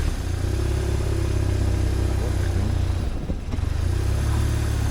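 BMW R1150RT's boxer-twin engine running while riding. The engine sound dips briefly about three seconds in, then picks up again.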